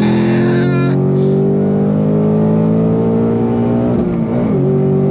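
2024 Ford Mustang Dark Horse's 5.0-litre Coyote V8 pulling under throttle, heard from inside the cabin, its note rising slowly for about four seconds. Near the end the note wavers and dips briefly, then holds steady at a slightly lower pitch.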